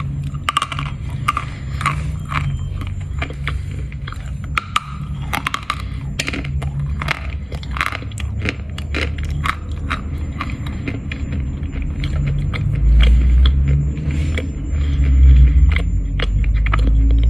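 Dry crunch of Khrapovsky chalk being bitten and chewed: many sharp, irregular crunches. A low rumble builds over the last few seconds.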